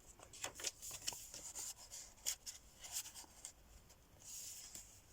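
Paper pages and cardstock tags of a handmade junk journal being turned and handled: faint rustles and light taps, with a longer soft rustle about four seconds in.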